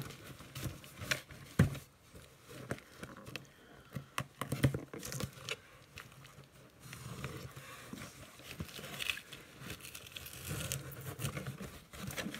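Cardboard shipping box being opened by hand: scattered knocks and scrapes of the box and its taped flaps, then a longer stretch of rustling and crinkling in the second half as the flaps and kraft packing paper are handled.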